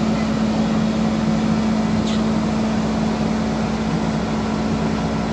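Volvo crawler excavator's diesel engine running steadily under load as the machine works its way onto a low-bed trailer, with a short high-pitched sound about two seconds in.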